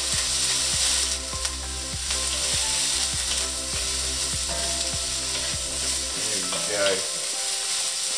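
Broccoli sizzling in hot oil in a wok on high heat, stirred and turned with a wooden spatula.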